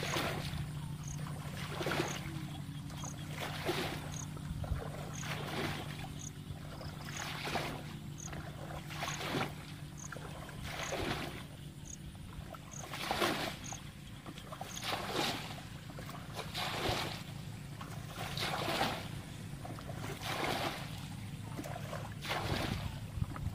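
Muddy pond water being bailed with a plastic bucket: a scoop and a splash of thrown water about every two seconds, draining the pool to get at the fish.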